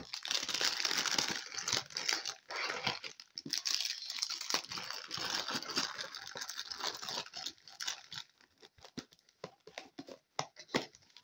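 Packaging crinkling and rustling as small kit pieces are packed back into it. The crinkling is dense for most of the first seven or eight seconds, then thins to scattered light rustles and clicks near the end.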